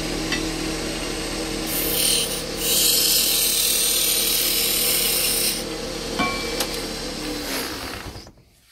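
Wood lathe motor running with a steady hum while a tool works the spinning wood, a louder hissing scrape for about three seconds in the middle; the sound dies away near the end as the lathe stops.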